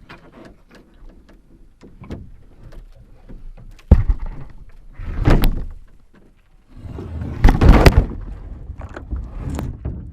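Hard knocks and scraping from a canoe and its gear being handled: a sharp thunk about four seconds in, another knock just after, then a louder stretch of knocking and scraping.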